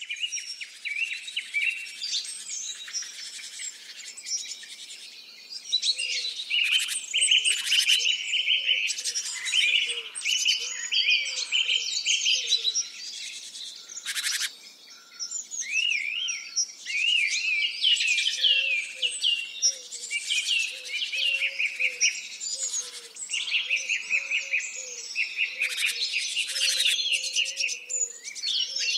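Several songbirds singing at once, a dense mix of chirps, trills and warbles, with a lower, fainter string of short repeated notes underneath through much of it.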